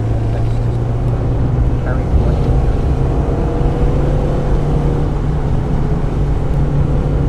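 1995 Mazda Miata's 1.8-litre four-cylinder engine pulling hard under load, heard from inside the cabin, its pitch climbing through the first few seconds and then holding steady. Tyre and road noise from the wet track runs underneath.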